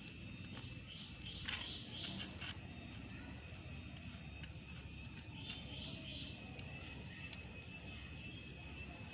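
Hand screwdriver driving a small black screw through a steel washer and hacksaw blade into a PVC pipe elbow: a few light scraping clicks between about one and a half and two and a half seconds in, and again around five and a half seconds in. Steady high-pitched tones run in the background.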